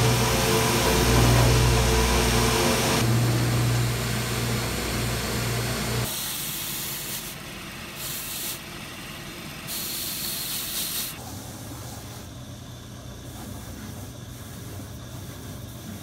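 A cobbler's finishing machine running with a steady hum while a leather boot is held against its spinning sanding and buffing wheels, giving a hiss of abrasion. About six seconds in, the sound drops abruptly to quieter bursts of brushing hiss that start and stop, then settles to a lower steady hum.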